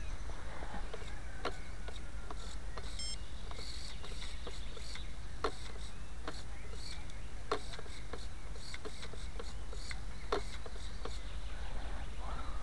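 Scattered sharp clicks and taps, roughly one a second, from the model paraplane and its onboard camera being handled on the ground, over a low steady wind rumble on the microphone. A brief faint high beep comes about three seconds in. The motor is not running.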